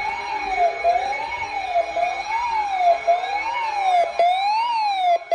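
Electronic siren alert from a weather alert radio: a tone sliding up and down about once a second, sounding an incoming severe thunderstorm warning.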